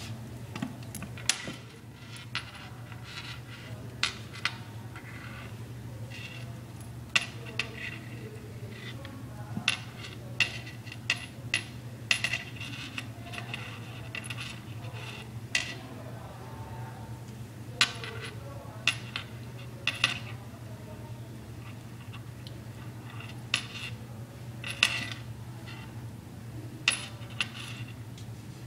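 Two kittens tussling in a wooden shelf cubby: irregular sharp clicks and knocks of paws and claws against the wood, over a steady low hum.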